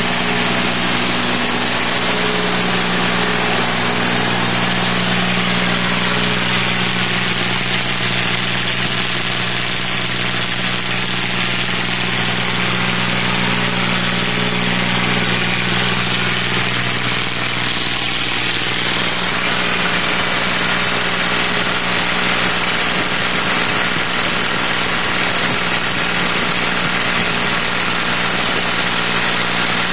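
Tractor diesel engine running steadily on an 80% jatropha biodiesel blend, with an even, unchanging engine note.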